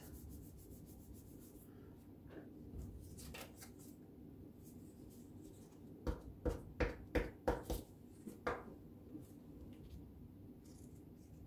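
Paper cutouts being shifted and pressed on a sheet. About six seconds in, a glue stick is rubbed over a paper feather in a run of about seven quick strokes.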